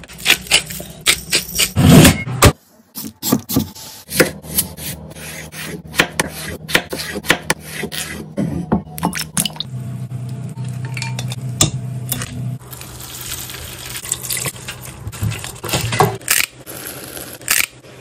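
Metal tongs clicking and clanking against a roasting tray and an aluminium stockpot as roasted pieces are moved into the pot, over a low steady hum. Later, water runs into the pot.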